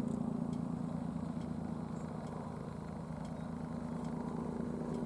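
A steady low engine hum, like a vehicle idling, with faint light ticks now and then.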